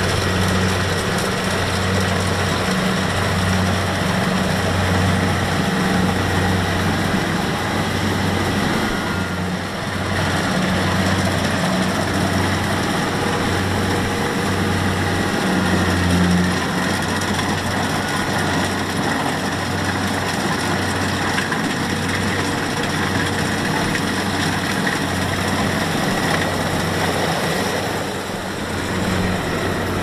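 Kubota DC-70 combine harvester running steadily while harvesting, its diesel engine a low drone that swells and eases about once a second under a broad mechanical whirr.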